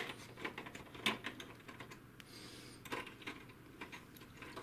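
Irregular clicks and taps of a screwdriver and small parts against the plastic chassis of an HP DeskJet 2130 printer, as a small metal screw holding the carriage motor is taken out. There is a sharp click at the very start, a few more spread through, and a brief scraping hiss about halfway.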